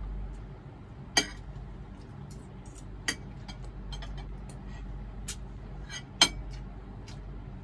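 Spoon and fork clinking and scraping against a ceramic plate and bowl while eating, a few sharp clinks with the loudest about six seconds in. A low steady hum lies underneath.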